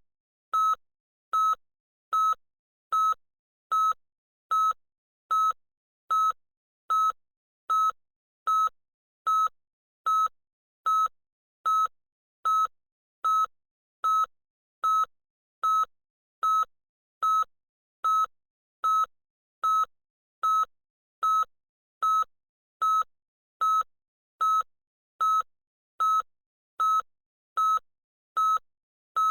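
Electronic beeper giving short, identical high-pitched beeps over and over at a steady pace, a little more than one a second.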